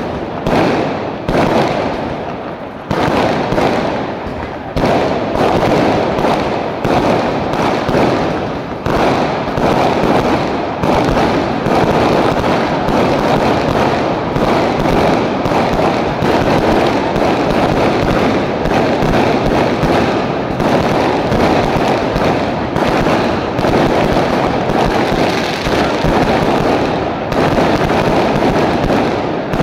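Aerial fireworks bursting in a rapid barrage: a few separate bangs at first, then from about three seconds in a dense, unbroken run of overlapping bangs and crackles.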